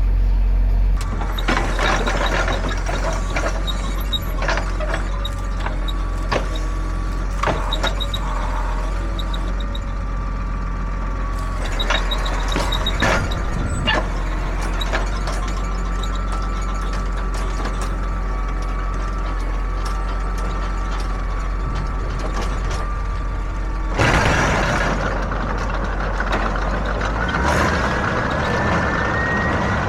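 Tractor engine running steadily, with scattered clanks and knocks over the first half. A burst of hiss comes about 24 seconds in, and a slowly rising whine follows near the end.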